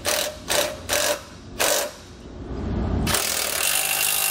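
Cordless impact wrench with a half-inch socket tightening nylon lock nuts onto bolts: four short bursts in the first two seconds, then a longer steady run starting about three seconds in.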